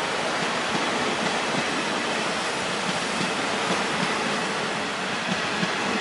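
Goods train wagons, converted motor car carrier coaches, rushing past at speed: a steady rush of wheels on rail.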